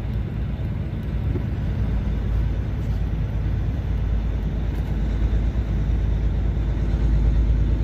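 Steady low engine and road rumble inside the cab of a loaded semi truck driving along a town street, growing a little louder near the end.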